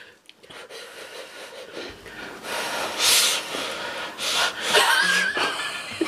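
Noisy mouth breathing of a person eating a bite of food, with a stronger puff of breath about three seconds in.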